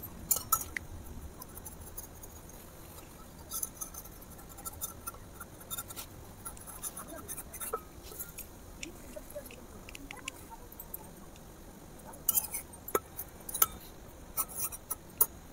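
A small metal spatula scraping and tapping against a miniature iron kadai as a pancake cooks in it: faint, scattered light clicks and scrapes, busier in the first second and again near the end.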